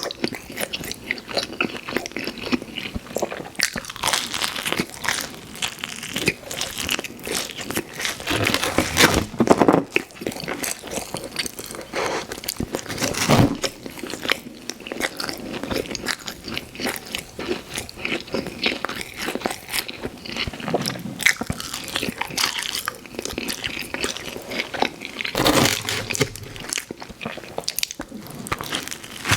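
Close-miked wet chewing and biting of pizza: continuous mouth smacks, crackles of crust and a few louder bites.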